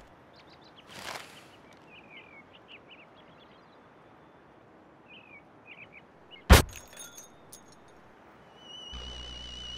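Faint bird-like chirps over a soft hiss, then one sharp, loud crack about six and a half seconds in, like glass breaking, followed by a few small ticks. Near the end a warbling electronic tone with a low hum comes in.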